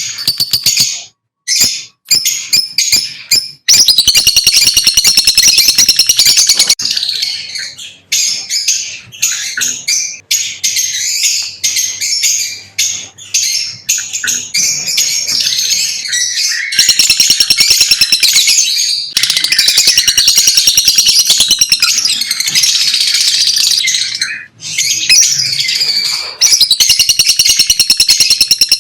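Lovebirds chirping: a dense stream of rapid, high-pitched chirps and squeaks, broken only by a few brief pauses.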